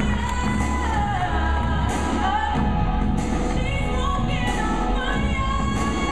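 Song with singing, played loud, with a school drumline drumming along; a sharp hit lands every second or so.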